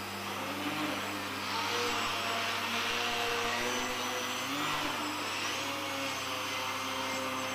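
Small RC flying model's propeller and motor whining steadily, its pitch rising and falling as the throttle is worked, over a constant low hum.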